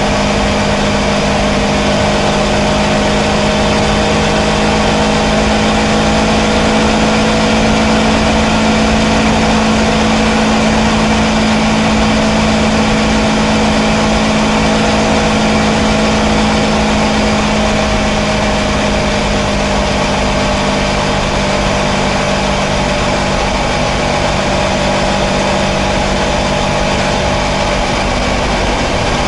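Kawasaki Versys 650's parallel-twin engine running at a steady cruise, with wind noise rushing past.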